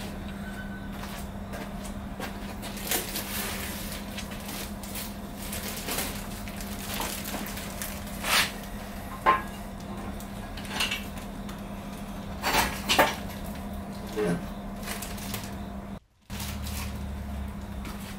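Scattered metal clanks and clinks as a plastic-wrapped engine is handled and mounted on a steel engine stand, with the wrap crinkling, over a steady low hum.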